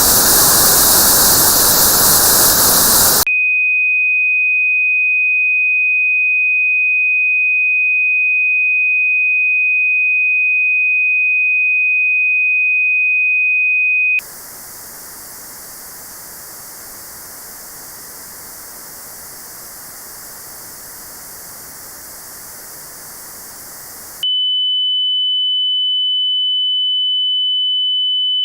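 Tinnitus test signals: white noise with a band notched out around the test pitch, then a single steady high pure tone for about ten seconds. About fourteen seconds in, the notched white noise returns much quieter. About twenty-four seconds in, a slightly higher steady pure tone starts, the next step up in the test.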